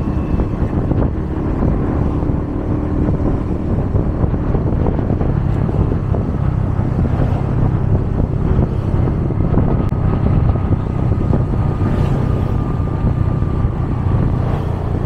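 Steady road-traffic noise of vehicle engines and tyres, with wind on the microphone adding a low rumble.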